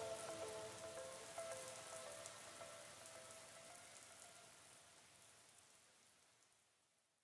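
A rain-like patter and hiss under a few held musical tones, fading away steadily to silence just before the end.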